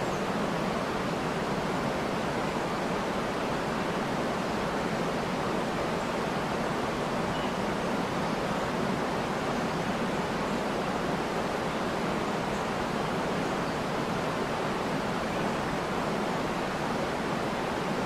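Steady, even rushing of water pouring over the Ventas rumba, a wide, low waterfall on the Venta river.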